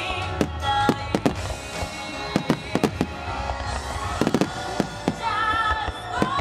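Aerial fireworks bursting and crackling in quick succession during a fireworks show finale, with music playing underneath.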